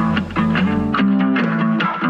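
Background music: a guitar picking out a quick, evenly spaced pattern of notes, with the bass line dropping out for a moment about a second in.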